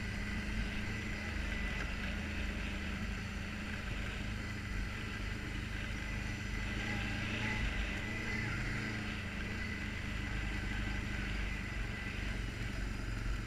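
ATV engine running steadily as the quad rides along a rocky dirt trail, with no marked revving or changes in pace.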